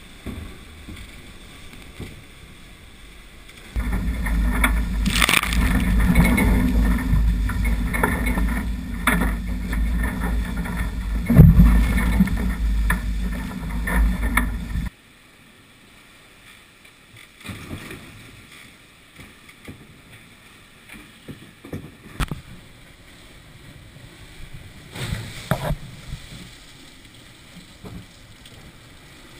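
Sailing catamaran under way at speed: wind noise on the microphone and water rushing past the hulls. It is loud and rumbling from about four seconds in, cuts off suddenly about halfway, and gives way to a much quieter wash of water with a few scattered knocks.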